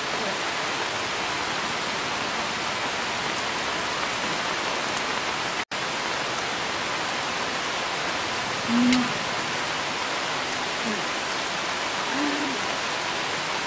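Steady hiss of heavy rain falling, with a couple of brief low hums of a voice about nine and twelve seconds in.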